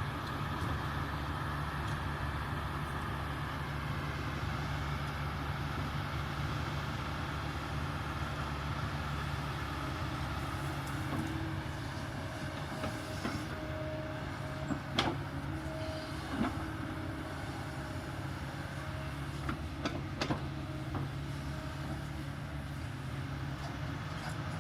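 Kobelco excavator's diesel engine running steadily, with a few sharp metallic clanks and short squeaks in the second half.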